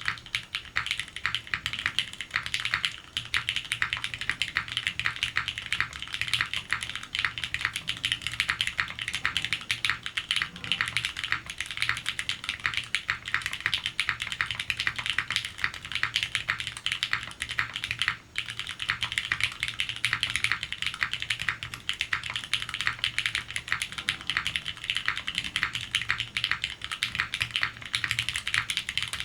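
Continuous fast typing on a Palmetto60 custom 60% mechanical keyboard with lubed and filmed Gateron X switches, a full POM plate, O-ring mounting and GMK keycaps: a dense stream of keystrokes, with a brief pause about eighteen seconds in.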